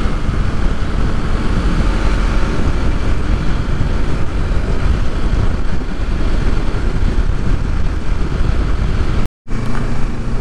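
Kawasaki Ninja 650 parallel-twin motorcycle on the road at speed: a loud, steady rush of wind over the camera microphone, with engine and road noise beneath. The sound drops out briefly about nine seconds in, then a steadier low engine hum comes in.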